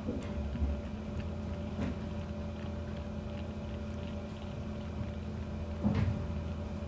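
A bottle-fed kitten suckling milk from a nursing bottle: small wet sucking clicks over a steady low hum, with one louder thump about six seconds in.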